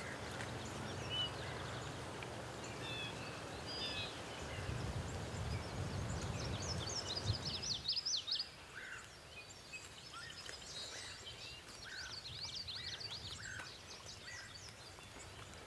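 Small birds chirping and singing, with quick high trills repeating over outdoor ambience. For the first half a low rustling noise runs underneath, which drops away about eight seconds in.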